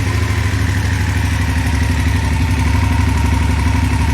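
BMW F850GS parallel-twin engine idling steadily just after starting. It carries the ticking that the owner thinks may come from a prematurely worn rocker arm in the cylinder head.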